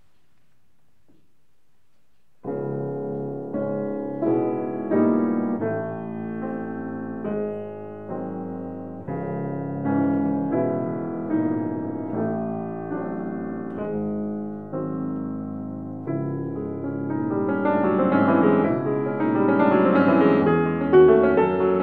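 Grand piano playing a classical piece. It starts with a sudden chord after about two seconds of quiet, runs on in slow, separate phrases, and grows fuller and louder near the end.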